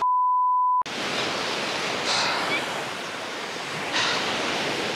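A censor bleep, one steady beep lasting just under a second, then surf washing on the shore, with two brief louder surges about two and four seconds in.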